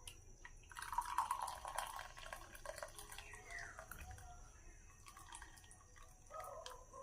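Liquid pouring and splashing into a container, dripping as it goes, starting about a second in and lasting about three seconds, followed by a few faint knocks.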